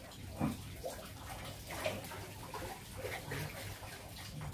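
Water splashing and trickling, with a slightly louder splash about half a second in and another near two seconds.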